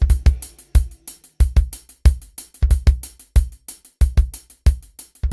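Outro music with a steady drum beat: a deep kick and a snare keeping an even pulse about three strokes every two seconds, with lighter hits and cymbal ticks between.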